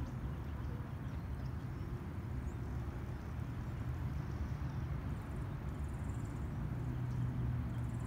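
Steady low rumble of distant traffic, with a few faint bird chirps.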